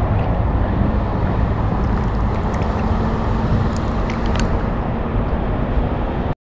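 Steady outdoor rushing noise with a deep rumble, and a faint steady low hum under it.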